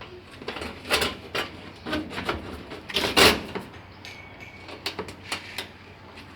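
Irregular knocks and clattering from things being handled, the loudest a little past the middle.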